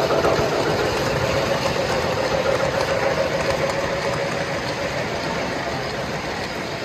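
Model train running on the layout's track: a steady electric-motor hum with wheel rumble that slowly fades after about four seconds.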